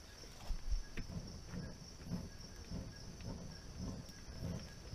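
A wood campfire being fanned by hand with a flat plate, giving soft rhythmic whooshes of air about twice a second.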